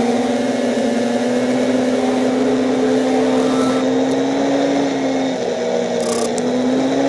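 ATV engine running steadily while riding along, easing off briefly about five seconds in and then picking up again.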